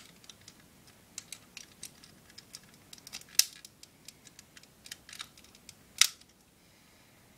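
Plastic parts of a Power Master Optimus Prime Transformers toy clicking and snapping as they are turned and shifted by hand: a steady run of small clicks, with two sharp louder snaps about three and a half and six seconds in.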